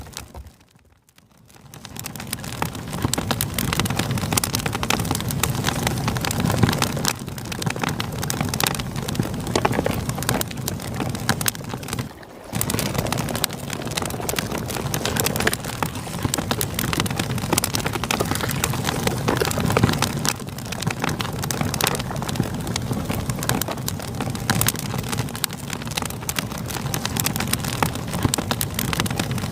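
Campfire crackling over the steady rush of a river, with many small pops on a continuous hiss. The sound drops away briefly about a second in and again, more shortly, near twelve seconds.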